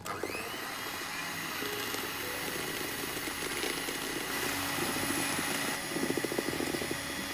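Electric hand mixer switched on and running at speed, its steel beaters whisking egg whites and sugar into foam in a stainless steel bowl: a steady motor whir and whine that starts suddenly, with a fast rattle of the beaters coming in during the second half.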